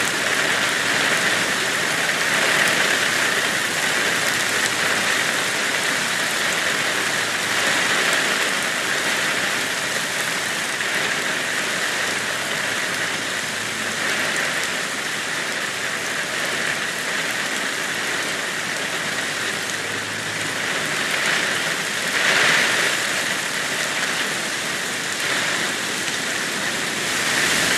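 Heavy rain pouring onto a street, pavement and nearby surfaces: a dense, steady hiss of rain that swells briefly about three-quarters of the way through.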